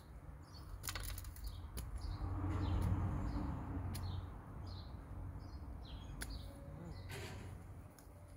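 Small birds chirping over and over, short high chirps several times a second. A few sharp clicks and a low rushing swell that peaks about three seconds in lie underneath.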